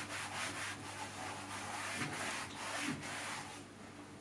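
A damp cloth rubbing over a piece of plastic car trim in quick, repeated back-and-forth strokes, about three or four a second, stopping about three and a half seconds in.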